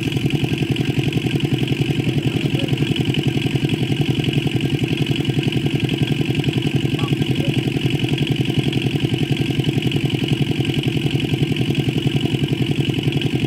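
Small engine running steadily at an even speed, with a fast regular chugging beat.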